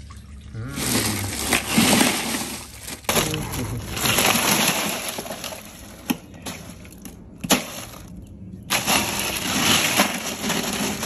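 Ice crunching and clattering in a cooler as fish are dug out of it, in three spells of a few seconds each with sharp knocks in between.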